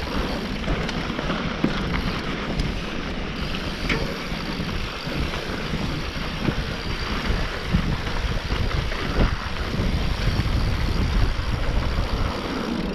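Mountain bike descending a dirt trail: wind buffets the microphone while the tyres roll over the dirt, with scattered short knocks and rattles from the bike over bumps.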